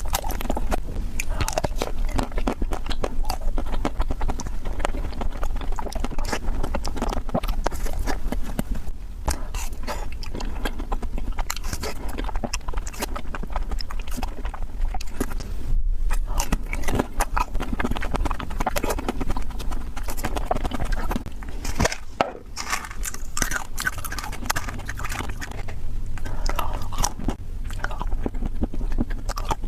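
Someone eating ice cream fast: steady crunchy biting and chewing, dense crisp crackles with a few brief pauses.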